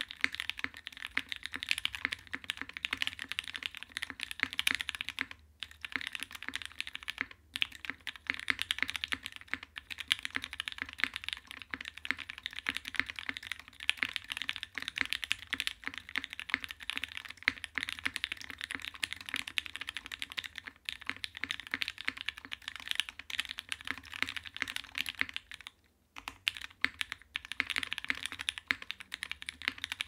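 Continuous fast typing on a custom 60% mechanical keyboard with lubed and filmed Gateron Black Ink V2 linear switches in a top-mounted aluminium plate with no dampening, under GMK keycaps; dense key clacks with a few short pauses.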